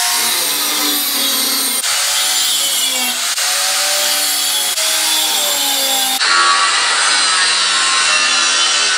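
Angle grinder with a cut-off wheel cutting through steel push-bar tubing, running continuously; its whine dips and recovers as the wheel bites into the metal.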